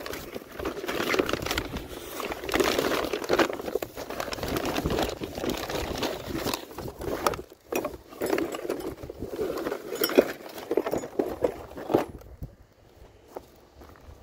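Hands rummaging through a box of old photography gear: crinkling and rustling with scattered knocks and clinks. It quiets down sharply near the end.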